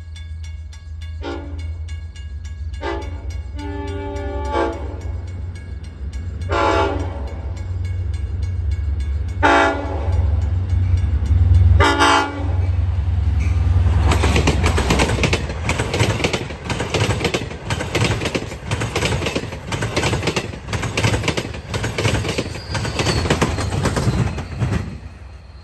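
A Long Island Rail Road diesel train sounds a series of short horn blasts over a low engine rumble as it approaches a grade crossing. From about halfway through, the train passes close by, its wheels clattering over the rails, and the sound drops off sharply just before the end.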